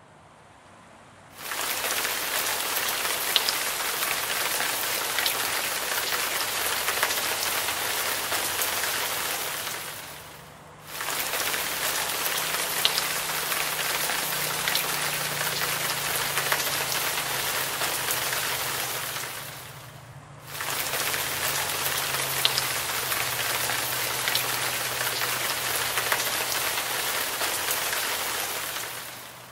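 Steady rush of splashing water from a garden waterfall and stream. It comes in three stretches of about ten seconds, each fading out and then starting again abruptly.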